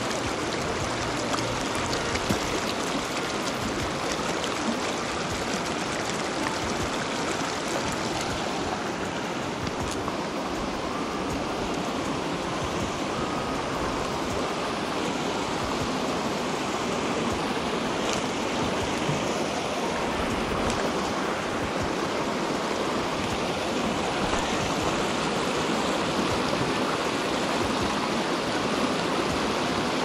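A mountain stream running over rocks and small cascades: a steady, even rush of water.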